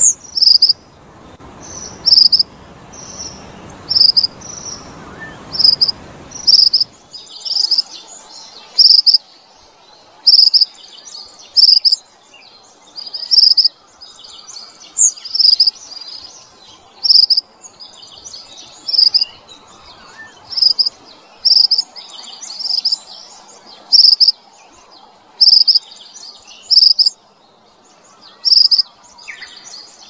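Mantenan Padang bird singing: a short, high note repeated about once a second, sometimes doubled, with faster, fainter chattering notes between them. A low background hiss drops away about seven seconds in.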